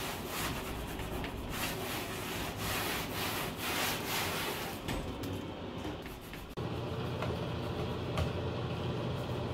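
Hand-held cloth rubbing over a painted wall in repeated wiping strokes. About six and a half seconds in, the sound cuts to a steady low hum.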